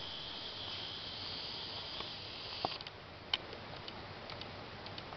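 An insect's steady high-pitched trill, which cuts off about three seconds in, followed by a few faint scattered ticks.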